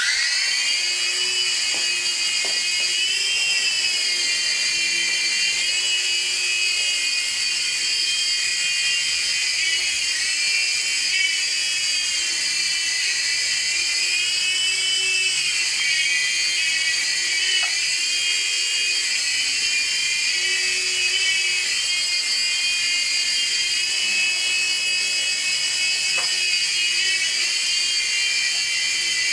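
Mini indoor RC helicopter in flight: the steady high-pitched whine of its small electric motors and rotors, with the pitch wavering up and down a little as the throttle changes.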